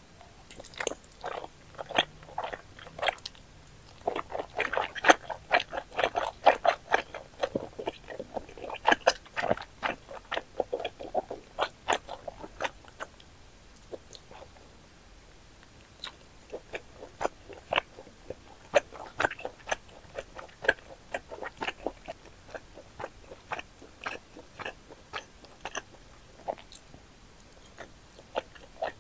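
Close-miked mouth sounds of a person chewing chewy starch noodles: wide Chinese glass noodles and thick bunmoja pieces. Rapid wet, sticky clicks and smacks, densest in the first twelve seconds or so, then sparser.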